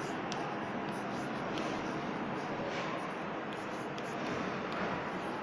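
Chalk writing on a blackboard: faint scratching and a few light taps over a steady background hiss.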